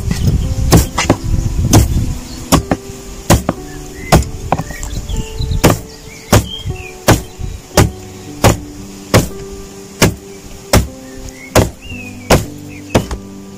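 Meat cleaver chopping a lamb rib rack into chops on a wooden cutting board: sharp, even strikes, about three every two seconds.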